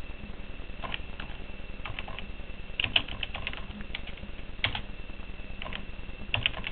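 Computer keyboard being typed on: irregular single keystroke clicks and short quick runs of keys, over a faint steady high whine and low hum.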